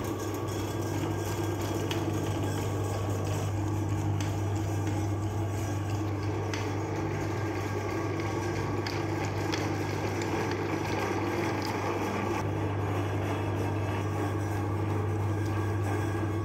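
Electric meat grinder motor running steadily with a low, even hum, its auger turning unloaded with nothing fed in.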